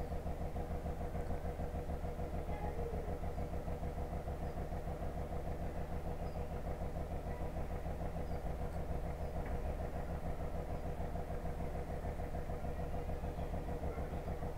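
An engine idling steadily: a low, even hum with a regular pulse.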